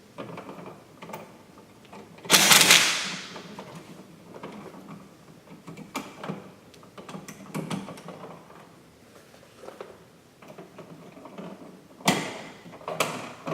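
Hand work at a wall switch box: scattered small clicks and knocks of tools and switch hardware, with a loud rustling scrape about two seconds in and another near the end.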